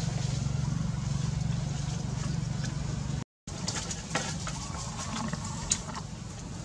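A steady low hum, then after a brief cut, scattered light clicks and crackles from a plastic water bottle being handled by macaques on a split-bamboo floor, with one sharp click near the end.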